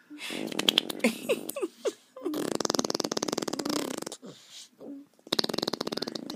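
A toddler blowing raspberries, buzzing his lips to make fart noises. There are a few short sputters first, then a long buzz of about two seconds, and another buzz near the end.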